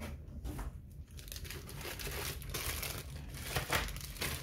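Clear plastic bags holding cables and small connectors crinkling as they are handled and lifted out of the packing.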